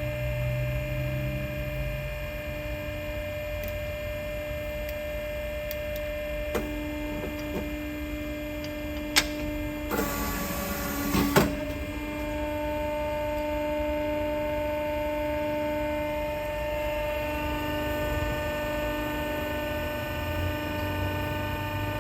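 A machine running with a steady hum whose pitch pattern shifts about twelve seconds in, with a few sharp clicks and a short burst of hiss about ten seconds in.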